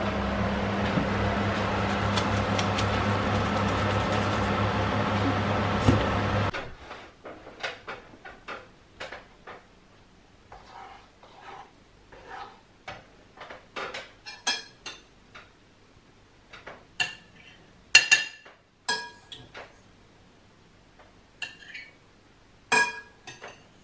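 Metal cooking utensils scraping and clinking against a frying pan and a plate, in scattered strokes with a few sharp clinks. Before that, a steady rush with a low hum cuts off suddenly about six seconds in.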